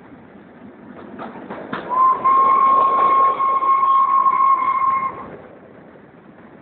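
Steam whistle of GS&WR J15 0-6-0 locomotive No. 186 giving one long blast of about three seconds, a steady single note that bends up slightly as it opens, over the running noise of the train.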